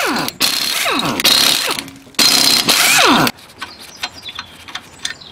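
Pneumatic impact wrench undoing wheel bolts: three bursts of rapid hammering, each with a whine that falls in pitch as the tool spins down, followed by lighter clicks and clatter.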